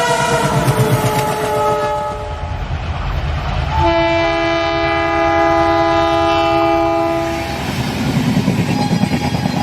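Indian Railways train passing at speed. A locomotive horn at the start drops in pitch as it goes by. A second long horn blast sounds from about four to seven and a half seconds in, then the rumble and clickety-clack of wheels on the rails near the end.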